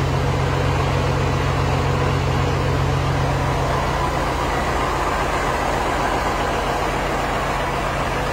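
Caterpillar C18 inline-six diesel engine running steadily at idle with an even low hum, on its test run after a rebuild.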